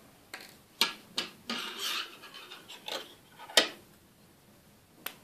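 Soft rubbing and rustling as a pink yarn tail is pulled through a small crocheted toy with a yarn needle, with a few light clicks, the sharpest about three and a half seconds in.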